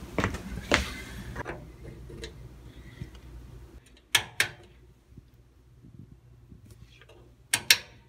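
3D-printed PETG replacement knob being turned on a toaster oven's function selector, the rotary switch clicking as it steps between settings: two sharp clicks about four seconds in and two more near the end. It opens with a rustle of handling.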